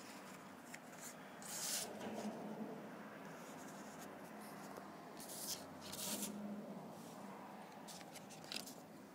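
Sheets of drawing paper being handled and moved through a stack, giving a few short rustles and slides of paper.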